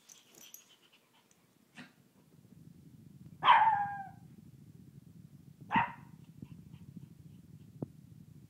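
Shih Tzu puppy giving two short barks: the first, about three seconds in, is the louder and longer and drops in pitch at its end; the second, about two seconds later, is shorter.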